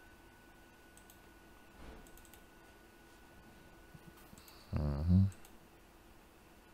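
Faint computer mouse clicks while menus are opened. About five seconds in comes a short low-pitched sound lasting about half a second, the loudest thing here.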